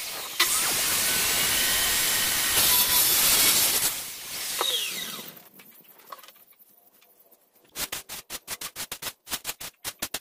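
Handheld electric circular saw cutting along a long wooden board for about four seconds, then winding down. After a pause, quick strokes of a hand brush sweeping sawdust off the board, about five strokes a second.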